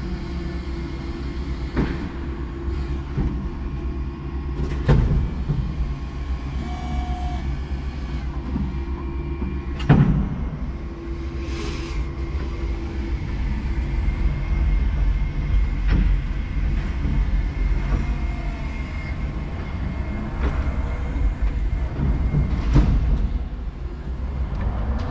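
Electric forklift working: a steady hum of its motors over a low rumble, with a few clunks from the mast and load, the loudest about ten seconds in.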